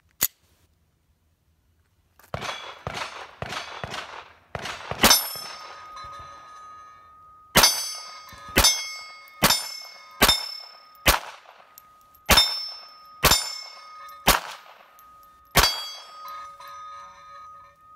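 A string of .22 rimfire shots from a Smith & Wesson SW22 Victory pistol, about one a second, most followed by the ringing clang of steel plate targets being hit. The pistol fires the Federal AutoMatch rounds without a stoppage. A single click comes right at the start.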